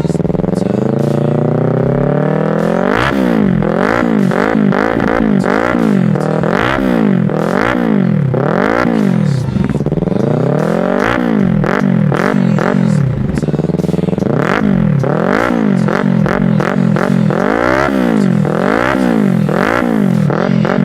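Yamaha MT-03/R3 321 cc parallel-twin engine with a Hurricane aftermarket sports exhaust, being revved. The revs climb slowly over the first few seconds, then come in many quick throttle blips that rise and fall back, one after another.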